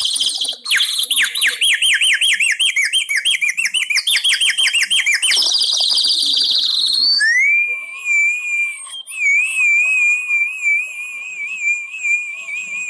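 Bird calls imitated by a foley artist whistling: rapid repeated chirps for about the first seven seconds, then a rising whistle that settles into a long, warbling held note.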